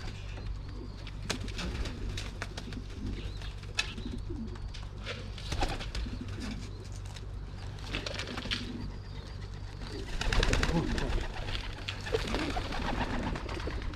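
Racing pigeons cooing in a loft, with scattered sharp clicks and taps and a louder scuffling burst about ten seconds in.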